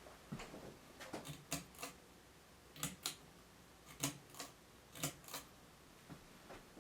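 Light, sharp clicks and ticks around a running ceiling fan, a cluster early on and then mostly in pairs about once a second. This is likely the pull-chain switch being worked as the fan changes speed.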